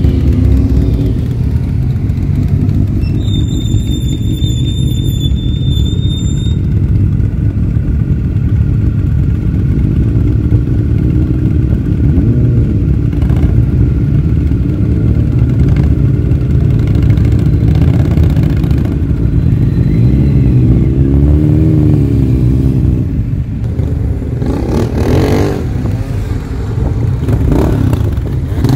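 A steady stream of motorcycles riding past one after another, engines running and revving as each pulls away and goes by. About three seconds in, a high steady tone sounds over the engines for roughly three seconds.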